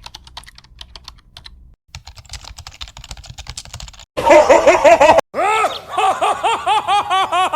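Faint rapid clicking, then from about four seconds in a loud voice laughing in quick repeated calls, each rising and falling in pitch, about five a second.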